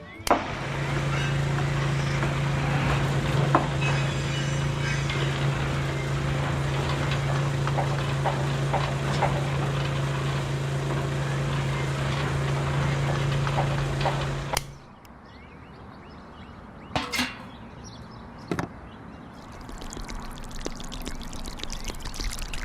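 A small electric motor runs steadily, giving a low hum with a rattly buzz and small clicks, then cuts off suddenly about two-thirds of the way through. Two sharp knocks follow near the end.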